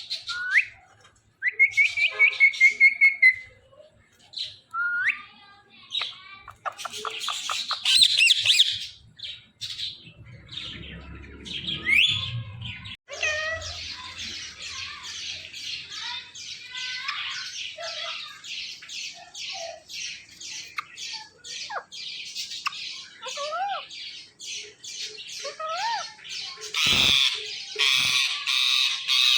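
Ring-necked parakeet calling: short rising whistles and a loud pulsing trill, then a long run of rapid harsh squawking chatter, several calls a second, with occasional whistled notes.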